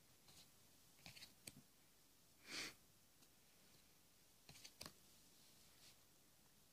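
Faint handling of small cardstock cards: a few light clicks and taps as cards are lifted off and slid from the deck, about a second in and again near five seconds, with a brief soft swish in between.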